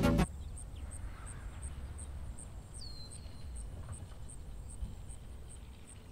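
Summer outdoor ambience: an insect chirping high and regularly at about three chirps a second over a low rumble, with a single short, falling bird whistle about three seconds in.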